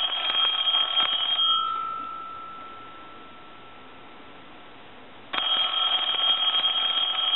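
Conairphone Metropolis telephone's new mechanical bell ringing on a ring cycle. A burst of about two seconds rings out, then the bell's tone hangs on and fades, and a second burst starts about four seconds later. The bell now rings, so the replacement has cured the phone's no-ring fault.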